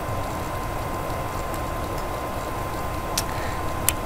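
Steady background hiss and hum of the recording, with a faint steady tone, and two short mouse clicks about three and four seconds in as the software is worked.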